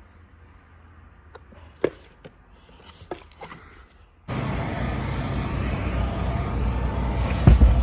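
A few light clicks and knocks, then from about four seconds in a sudden, steady low rumble of a car running.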